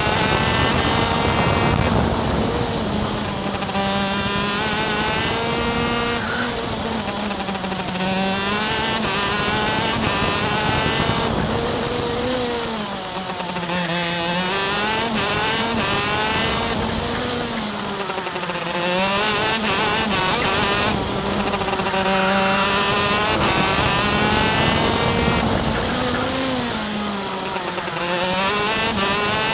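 Superkart's two-stroke racing engine at full speed on track, heard from onboard: the revs climb along the straights and drop sharply about five times as the kart brakes for corners, then rise again on the exits.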